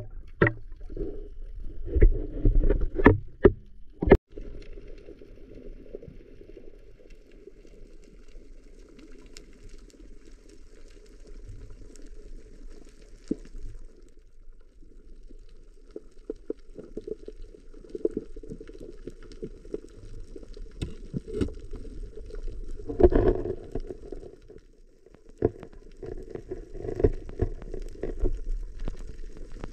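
Muffled underwater sound picked up by a camera in its waterproof housing: a low, steady rush of moving water with scattered clicks and knocks, a cluster of louder knocks in the first few seconds.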